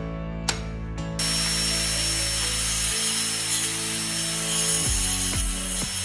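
Background music with a steady beat. About a second in, a loud, steady rasping noise from a tool or machine starts up. From about five seconds in, sharp clicks come at roughly two a second.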